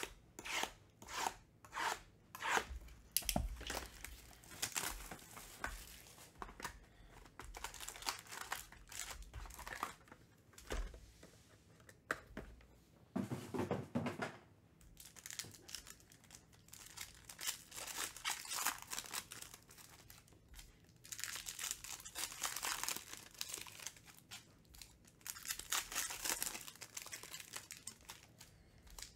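Trading-card boxes and foil packs being torn open by hand. There is a run of quick, sharp rips in the first few seconds, then scattered rips and a duller, heavier rustle around the middle, and dense crinkling of foil wrappers in the last third.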